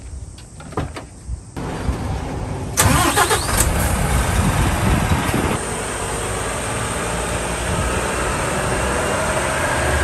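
UD Quon heavy box truck's diesel engine running as the truck pulls out and drives toward the listener, getting louder near the end. The first second and a half is quiet, then the engine noise comes in suddenly, with a sharp rise in level about three seconds in.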